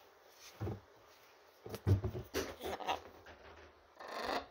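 Sneakers knocking against a closet shelf and dropping onto a hard floor: a soft thump, then a clatter of knocks over about a second and a half, and a short scuffing rustle near the end.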